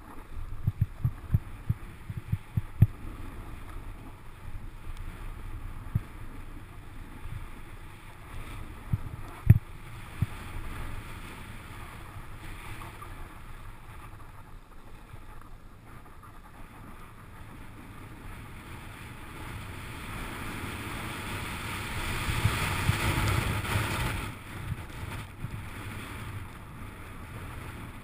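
Snowboard sliding over groomed snow: a steady rush, with a run of thumps in the first three seconds and a single sharp one about nine and a half seconds in. The rushing grows louder from about twenty seconds in and eases off again near twenty-four seconds.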